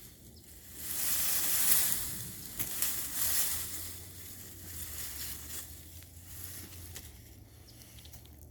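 Wood-chip mulch crunching and rustling in irregular bursts as it is dug through and pushed aside by hand to unearth sweet potatoes.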